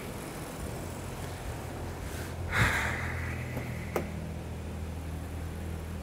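2015 BMW 640i's N55 turbocharged straight-six idling steadily while suffering intermittent misfires, later traced to an aftermarket spark plug. A brief rushing hiss comes about two and a half seconds in, and a single click about four seconds in.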